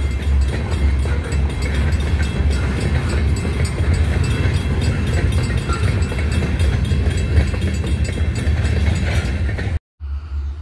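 Covered hopper cars of a freight train rolling past, a steady low rumble with quick, regular clicking of steel wheels over the rail. The sound cuts off abruptly near the end.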